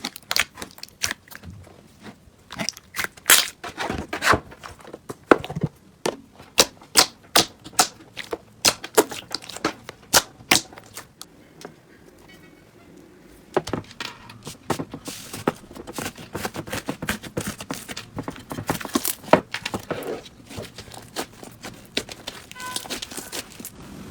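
Slime being handled, giving sharp, irregular pops and crackles, several a second. They ease off briefly about halfway, then come back thicker and smaller near the end.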